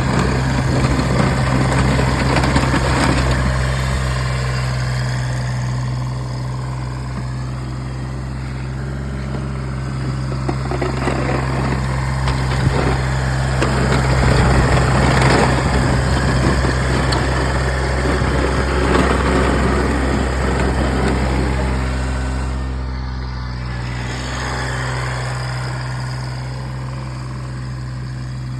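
Kubota BX1800 compact tractor's three-cylinder diesel engine running steadily, with a rougher rushing noise over it that swells and fades, strongest around the middle.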